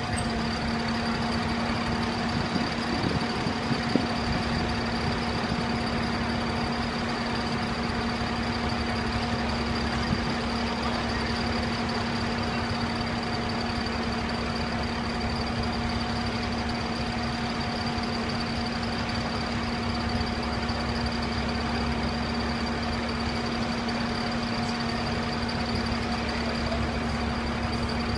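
Fire engine's diesel engine idling at the curb: a steady, unchanging hum with a faint high whine over it, and a few light knocks in the first few seconds.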